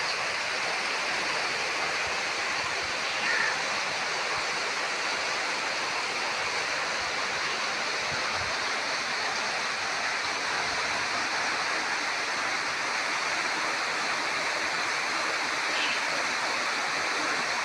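Steady, even rush of water from rain and floodwater running through a flooded street.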